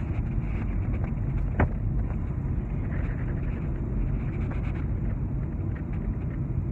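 Steady road and wind noise inside a car cruising at highway speed, with a single sharp click about a second and a half in.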